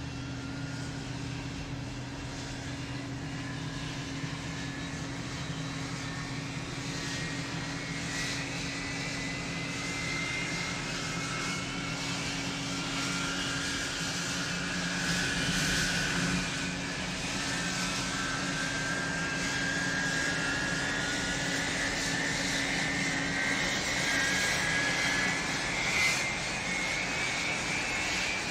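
An engine running with a steady low drone, over which a whine slowly rises in pitch and level.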